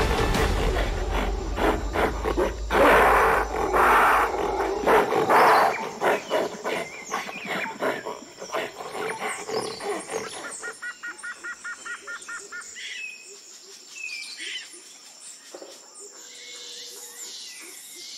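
Wild-animal sounds with some music: deep roars for about the first five seconds, fading into high chirping calls, with a rapid trill of evenly spaced notes near the middle.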